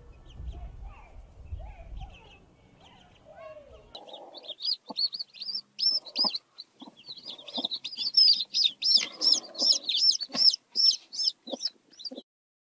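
A broody hen clucking softly over a low rumble, then, about four seconds in, a brood of baby chicks peeping rapidly in short, high, up-and-down chirps, with the hen's short low clucks among them, until the sound cuts off near the end.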